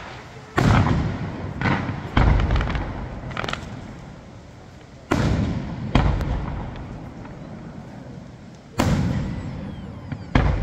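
Aerial firework shells bursting: about six loud booms spaced irregularly, each trailing off in a long fading rumble, with a few smaller crackling pops in between.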